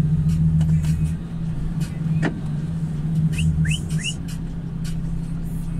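A truck engine running steadily at a low, even hum, with three short rising chirps a little past halfway.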